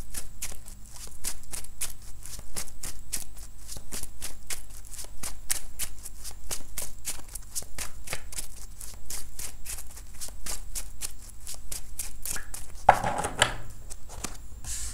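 A tarot deck being shuffled by hand, the cards slapping from one hand into the other in a steady patter of about four ticks a second, with a louder burst near the end.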